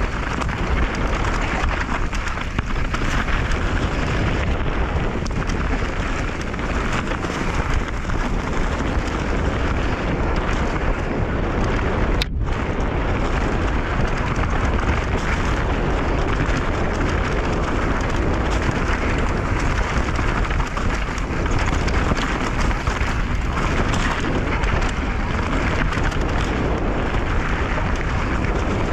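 Enduro mountain bike descending a rough, broken-up trail: a continuous noisy rumble of tyres and bike over the ground mixed with wind on the microphone. There is a momentary dropout about twelve seconds in.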